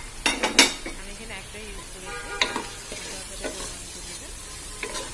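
Chow mein noodles and stir-fried vegetables sizzling in a hot pan as a wooden spoon tosses them, with several knocks of the spoon against the pan, the loudest about half a second in.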